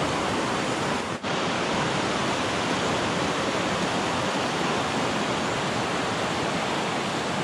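Fast mountain river rushing over boulders in whitewater rapids: a steady, dense rush of water, with a brief drop-out about a second in.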